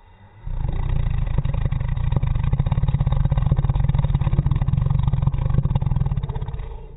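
A man snoring: one long snore of about six seconds, a fast low flutter, starting half a second in and fading away near the end.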